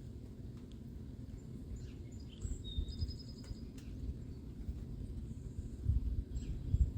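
Gusting wind buffeting the microphone as a low rumble, strengthening near the end, with a few short, high bird chirps around the middle.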